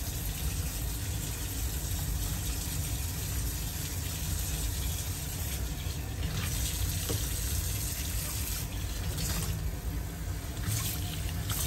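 Sink faucet running in a steady stream, the water splashing into the basin and over a monkey being rinsed under it.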